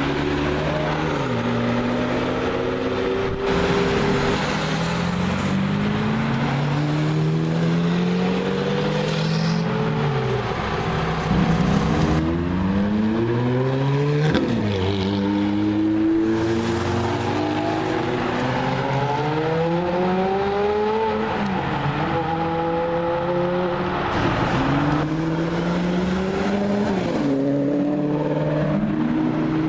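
Supercar engines accelerating hard, one after another. The pitch climbs through each gear and drops sharply at each upshift, about half a dozen times.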